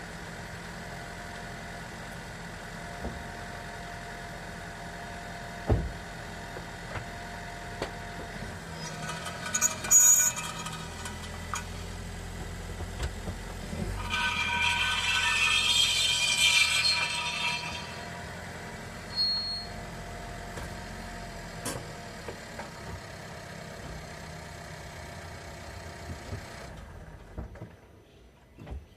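Suzuki Swift Sport ZC33S rolling along with a metallic scraping squeal from the front-left brake, coming and going over a steady low running hum and loudest for a few seconds about halfway through. The cause appears to be a small stone caught in the brake.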